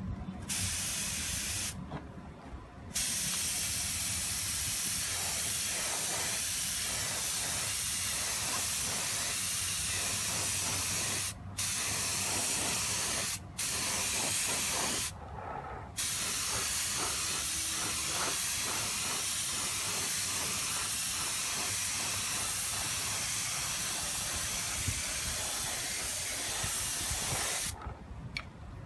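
Compressed-air spray gun hissing as hyper chrome paint is sprayed onto a motorcycle body part. It runs in long, steady passes broken by brief stops where the trigger is let go: a short pass, one of about eight seconds, two short ones, then a long last pass of about twelve seconds.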